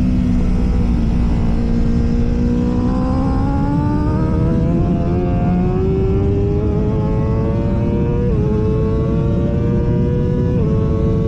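Honda CBR1000RR-R race bike's inline-four engine under way. The pitch sags briefly, then climbs steadily as the bike accelerates, with two quick dips about eight and ten and a half seconds in as it shifts up a gear. Heavy wind rush runs underneath.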